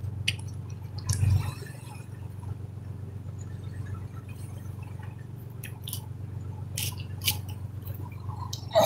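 Steady low drone of the fishing boat's engine, with scattered clicks and rubbing from the phone being handled close to the microphone.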